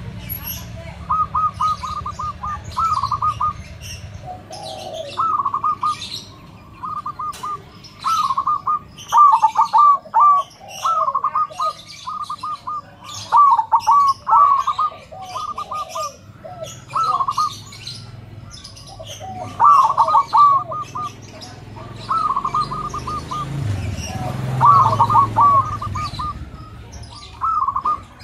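Zebra dove (perkutut) cooing: short, rapid trilled phrases repeated every second or two, with a few lower coos between them and short high chirps over the top.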